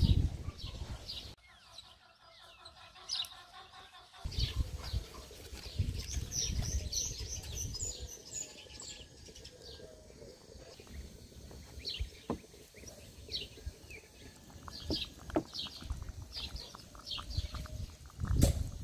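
Small birds chirping outdoors, many short, high, repeated calls, over a low rumble. A quieter stretch comes about one to four seconds in.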